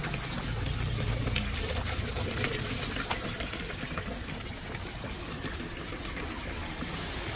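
Water draining down through a street storm-drain grate, a steady splashing trickle with small drips and splashes. The grate has been freshly cleared of leaves, so the water runs freely into the drain.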